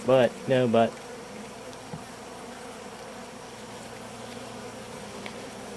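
A colony of honeybees buzzing steadily around an opened top-bar hive.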